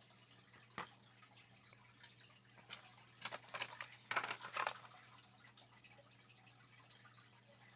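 Faint handling sounds: a single light click, then a cluster of small taps and rustles about three to four and a half seconds in, as a bucktail jig is set down on a sheet of paper and packaging is handled.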